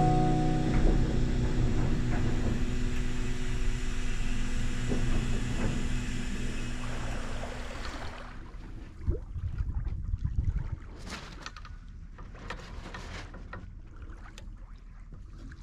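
Sustained music notes that fade out about halfway through. Then gusty wind noise and water sounds, as aboard a boat at sea.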